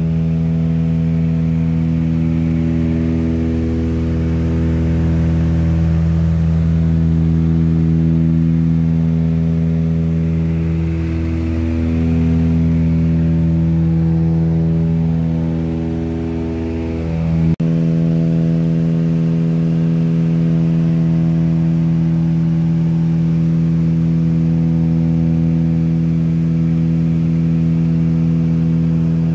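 Steady drone of a small propeller plane's engines heard from inside the cabin in cruise, with a slow wavering in the tone. About two-thirds in, a brief click and a sudden drop in the deepest part of the hum.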